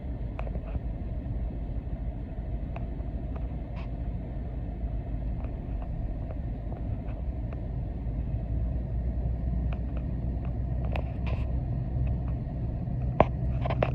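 ATV (quad) engine running under a steady low rumble while riding, with scattered short knocks and rattles, growing a little louder over the last couple of seconds.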